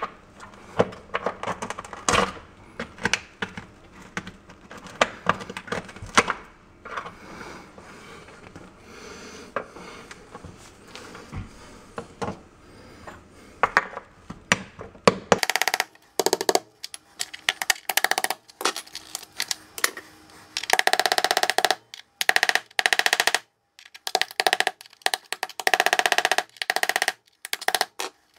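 Small metal chisel picking and scraping at the grout and a cracked travertine tile in a wall backsplash, with many scattered sharp clicks and taps. About halfway through it turns into harsher rasping scrapes in short bursts that cut off suddenly.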